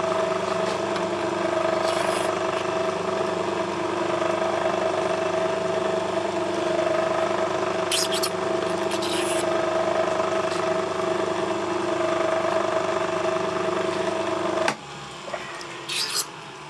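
An electric workshop machine motor runs at a steady speed with a constant pitched hum, then cuts off abruptly near the end. A few light metallic clicks come through around the middle and again after it stops.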